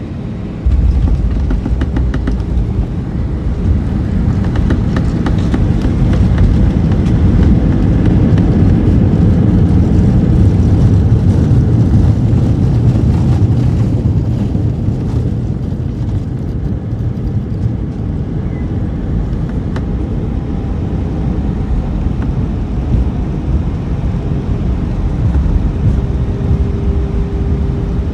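Airliner landing heard from inside the cabin: a sudden jump into a loud, deep rumble about a second in as the plane touches down, continuing through the rollout with some rattling. The rumble eases after the middle to a steadier hum, with a steady engine tone near the end.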